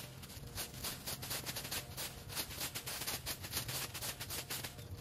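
Gas lawn mower engine running steadily.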